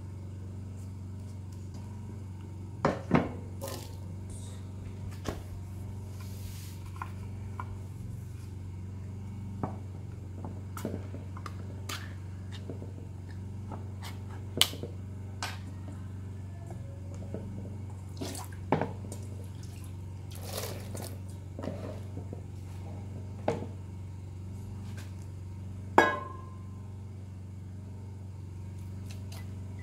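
Scattered clicks and knocks of hands working with a knife, an aluminium pot and a tin can of tomato paste over a steady low hum. Near the end comes the loudest, a sharp metallic clink that rings briefly as the can is knocked against a steel pot.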